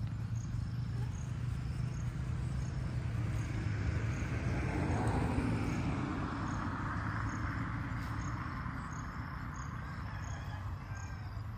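Insects chirping in a steady rhythm of short, high chirps over a low, steady rumble. A rustling hiss swells in the middle and fades.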